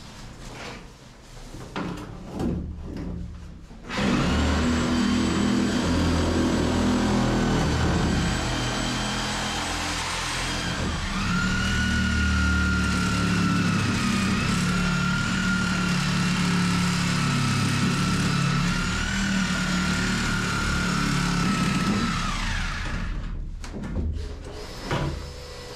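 Reciprocating saw running steadily for about eighteen seconds as it cuts into the old timber stringer of a boat hull, its motor whine lifting slightly in pitch partway through. A few light knocks come before it starts and after it stops.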